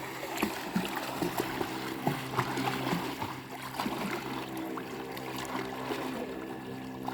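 Irregular splashing and sloshing of water as a person swims, with a steady low hum underneath.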